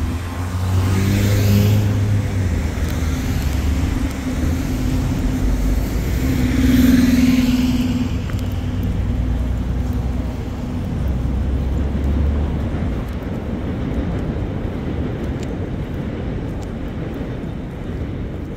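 Road traffic passing close by: two vehicles sweep past, loudest about a second and a half and seven seconds in, over a steady low rumble of engines.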